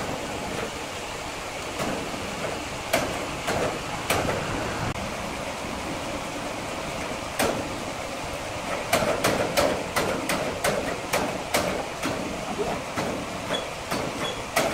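Horizontal band sawmill cutting along a large hardwood log as the saw head travels on its rails: a steady running noise with scattered sharp clicks, which come in a quick run of about three a second in the second half.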